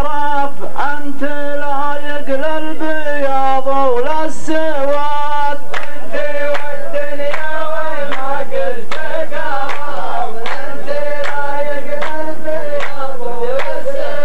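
Group of men chanting a drawn-out melody in unison, the sung chorus of a muhawara poetry exchange. Regular claps join about six seconds in.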